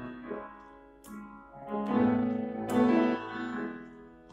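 Piano accompaniment playing sustained chords between sung lines, swelling louder for a second or so in the middle.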